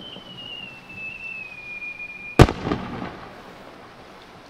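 Aerial firework shell rising with a whistle that sinks slightly in pitch for about two and a half seconds, then one loud bang as the shell bursts, echoing briefly afterwards.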